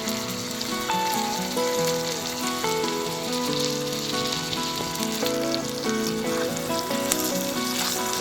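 Food sizzling and crackling in a tiny frying pan, with a melody playing over it.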